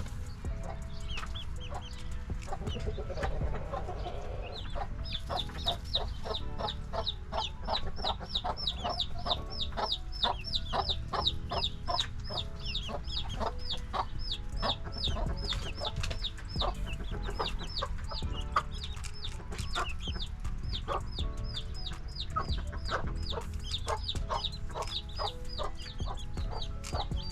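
Baby chicks peeping: a long, fast run of short, high, falling peeps, about four a second, starting a few seconds in, over a steady low rumble.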